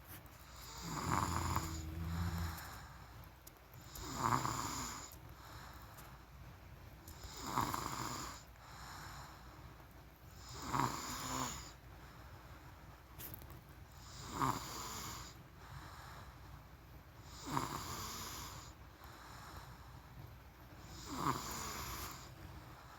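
Snoring in sleep: seven rasping breaths at a slow, even rhythm, about one every three and a half seconds. Each loud rattle is followed by a softer, longer breath out.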